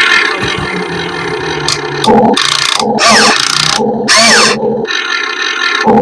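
RC excavators and bulldozers running: an engine-like mechanical drone that cuts in and out in short stretches, with a couple of sliding whines in pitch about halfway through.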